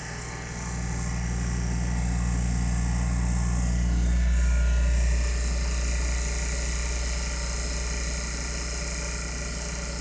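Blueline Orion 100 rotary vane vacuum pump and its electric motor running steadily, a low hum with a hiss above it. The pump is holding a deep vacuum of about 9×10⁻³ mbar. The sound swells slightly and is loudest around four to five seconds in, then eases back.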